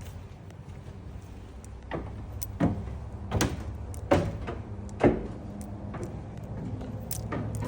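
Footsteps climbing a flight of stairs: heavy footfalls about every three-quarters of a second, starting about two seconds in, with a pause before two more steps near the end.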